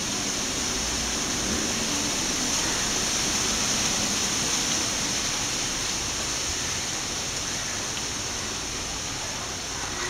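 A steady, high-pitched hiss that runs on evenly.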